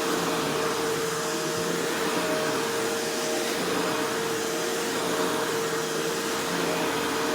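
Shark Rotator Powered Lift-Away NV650 upright vacuum running on its newly fitted motor, a steady airflow rush with a constant motor whine.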